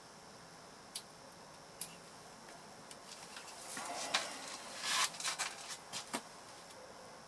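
Small sharp clicks of plastic from a car engine ECU wiring-harness connector being handled: two single clicks, then a run of clicks and rustling in the second half, loudest about five seconds in.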